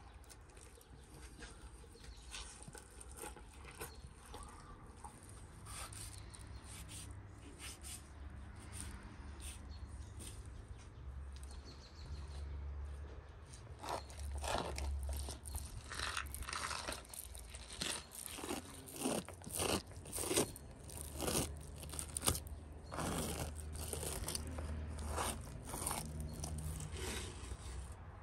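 Knife cutting raw beef liver on a wooden cutting board: irregular wet cutting strokes and knocks of the blade on the board, louder and more frequent from about halfway through.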